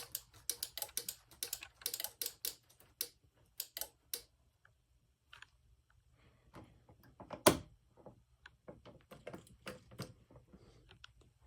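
Irregular small plastic clicks and taps of Snap Circuits parts and wires being handled, quick and dense for the first few seconds, then sparse, with one louder knock about seven and a half seconds in.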